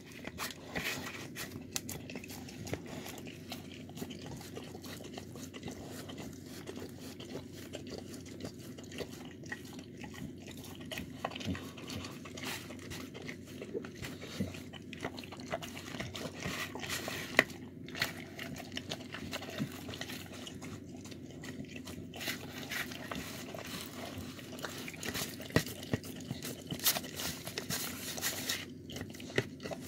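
A dog eating from a clear plastic tub: wet chewing and licking with many scattered sharp clicks.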